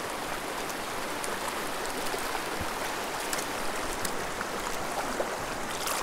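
Small mountain creek flowing, a steady rush of water with faint light ticks now and then.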